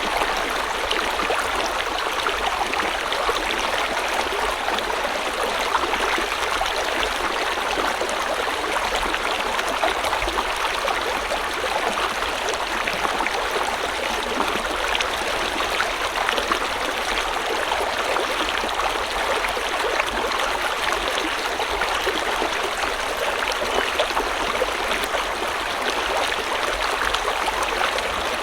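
Stream or river water flowing and splashing over rocks, a steady rushing with fine bubbling detail.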